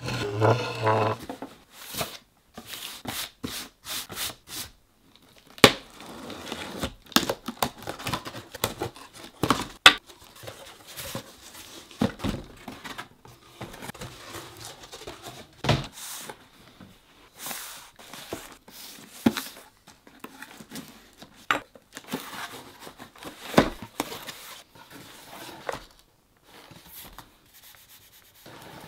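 Cardboard boxes being opened by hand: flaps pulled back and folded, and an inner carton lifted out and opened. Cardboard rubbing and scraping, with scattered sharp knocks against a wooden table top.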